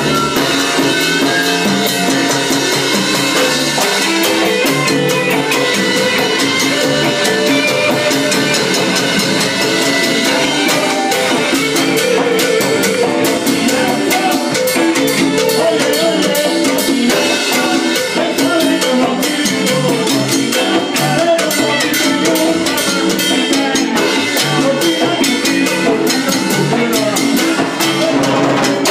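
Live salsa band playing, with drum kit and Latin percussion strokes running through dense, steady music.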